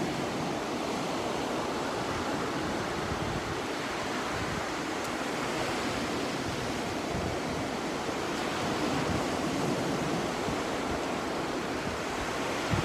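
Sea surf washing steadily onto the beach, with wind rumbling on the microphone.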